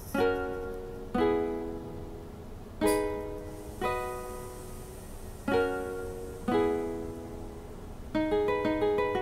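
Background music on a plucked string instrument: ringing chords struck about once a second, breaking into a quicker run of plucked notes near the end.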